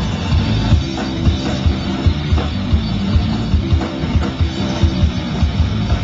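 Live rock band playing through a loud stage PA: electric guitar over a fast, steady drum-kit beat.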